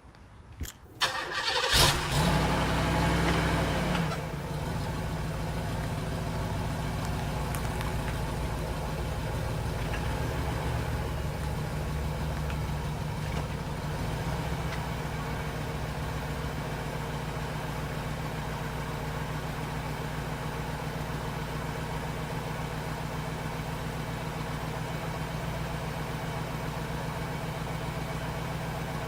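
Cadillac Seville V8 engine starting: a couple of clicks, then the engine catches about two seconds in and its revs flare up and fall back. It then settles into a steady idle.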